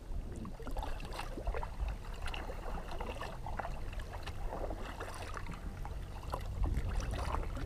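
Kayak paddles dipping and splashing, water dripping and trickling off the blades in many small splashes, over a steady low rumble.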